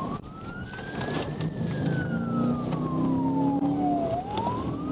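Police car siren on a slow wail, rising, then falling over about three seconds and starting to rise again near the end, over the pursuing cruiser's engine and road noise.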